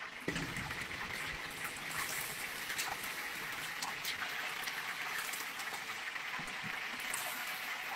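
Hot oil in a deep fryer sizzling and crackling steadily as whole battered chickens deep-fry, with a short low thump just after the start.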